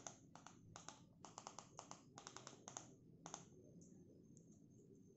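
Buttons on a TV remote control being pressed in quick succession, a run of faint clicks that stops about three and a half seconds in.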